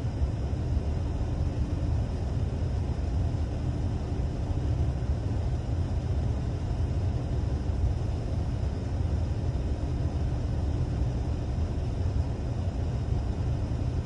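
Datsun 280ZX straight-six engine idling steadily while still warming up, heard from inside the cabin as a low, even rumble.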